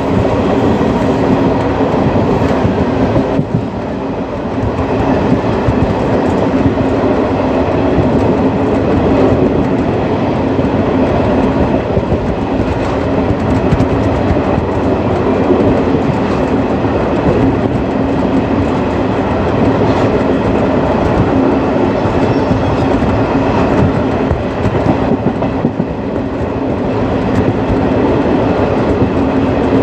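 Indian Railways ICF passenger coach running along the track, heard from aboard: a steady rumble with the clickety-clack of wheels over rail joints.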